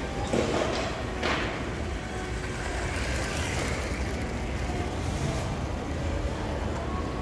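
Motorised LEGO high-speed passenger train running past close by on plastic track, heard over the steady hubbub of a busy shopping centre.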